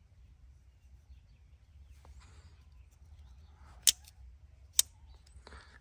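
Two sharp clicks about a second apart as a Definition Knives Boyd folding knife's blade is flipped open and snaps into its lock, with faint handling rustles around them.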